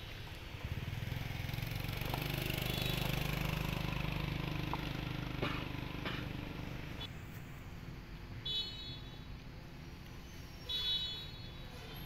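A motor vehicle passing nearby, its engine hum swelling over the first few seconds and fading away by about halfway through.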